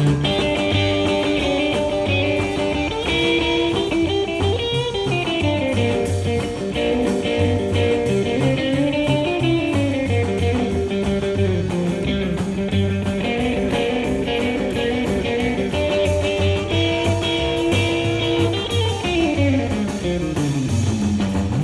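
Instrumental rock music with no singing: an electric guitar lead with sliding notes over a steady bass line.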